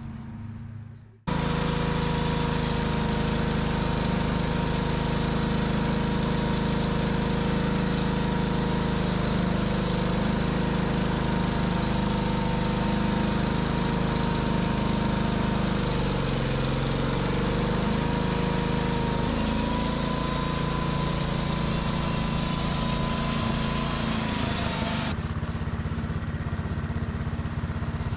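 Small petrol engine running steadily under throttle, cutting in abruptly about a second in, its pitch sagging and recovering briefly about halfway through. Near the end the sound changes, losing its hiss.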